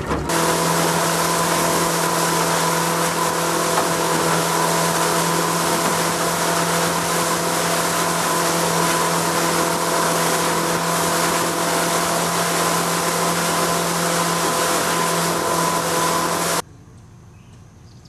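Motorboat engine running at a steady cruising speed, its even drone holding one pitch over the rush of water and wind past the hull. It cuts off abruptly near the end, leaving only faint outdoor ambience.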